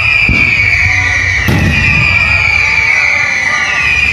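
Aerial fireworks shells bursting, with a sharp bang about one and a half seconds in, over a steady high whistling tone that slowly falls in pitch.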